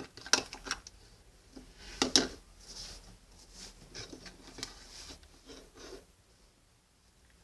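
Freshly mixed glitter slime, made with borax water, being squeezed and pulled by hand: a run of small wet clicks and crackles that stops about six seconds in.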